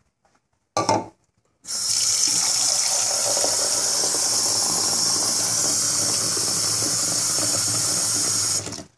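A brief knock about a second in, then water running steadily for about seven seconds before it cuts off sharply. This is water being measured out by the cup at the kitchen sink and poured over pinto beans in a pressure cooker.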